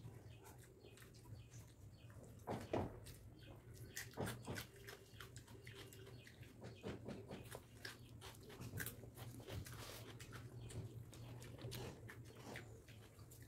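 A person eating rice and fish by hand from a steel plate: faint, scattered clicks and smacks of chewing and of fingers working the food on the plate, over a low steady hum.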